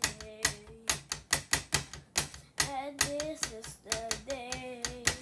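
Irregular sharp taps on a hard surface, about three or four a second, with a voice holding wordless, wavering notes between and under them.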